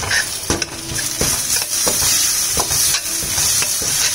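Chopped onions, green chillies and capsicum sizzling in a stainless steel kadai while a slotted steel spatula stirs them. The spatula scrapes and clinks against the pan at an irregular pace, several times a second.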